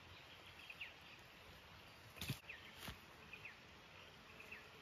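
Near-quiet bush with a faint, high chirp repeating about once a second, each a short buzzy note ending in a quick downward sweep. Two sharp knocks, about 2.3 and 2.9 seconds in, are the loudest sounds.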